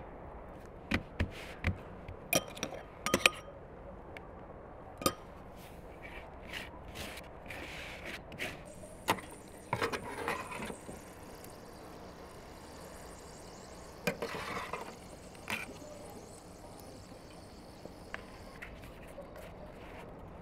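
Metal tongs and a knife clinking and knocking against a barrel grill's metal tray and rack as meat is cut from a stacked doner. A scatter of sharp clinks, loudest in a cluster about two to three seconds in, then single knocks and a few short rustling handling sounds.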